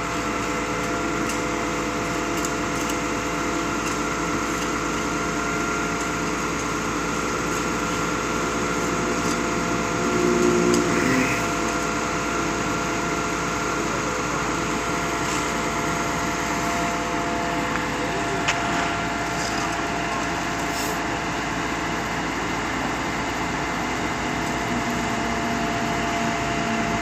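Concrete pump's engine running steadily with a constant hum, rising briefly about ten seconds in, with a single sharp knock a little past halfway.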